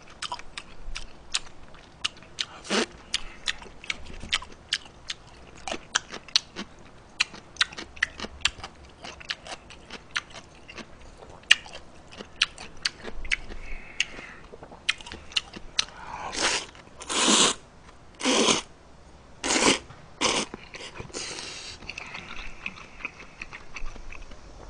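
A person eating jjamppong noodles close to a microphone: a long run of small wet chewing and mouth clicks, then, from about sixteen seconds in, a series of loud noodle slurps, each about half a second long.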